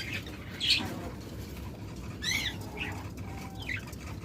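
Budgerigars chirping: a scatter of short, high chirps, with one arching call about two seconds in.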